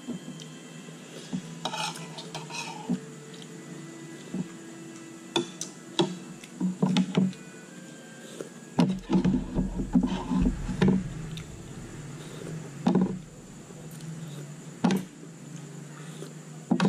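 Spoons clinking and scraping on ceramic plates and a soup bowl during a meal, scattered sharp clicks over a steady low hum, with a busier stretch of eating noises about halfway through.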